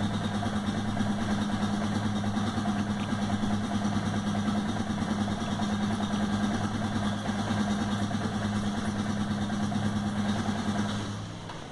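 AKT RTX 150 motorcycle's single-cylinder 150 cc four-stroke engine idling steadily in neutral at about 1,500 rpm, fading out near the end.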